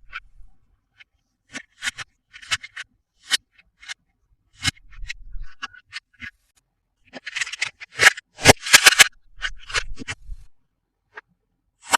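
Hands unboxing plastic toys: a string of short clicks, taps and crinkles from packaging and toy pieces, busiest and loudest about seven to nine seconds in.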